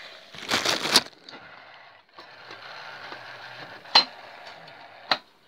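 Handling noise as the hand-held camera is moved and put down: a brief rustling scrape about half a second in, then a faint steady hiss broken by two sharp clicks, one about four seconds in and one about a second later.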